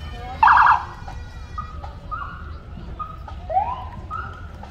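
Police cruiser sirens giving short blips: a loud, rapidly pulsing burst about half a second in, then several brief rising whoops.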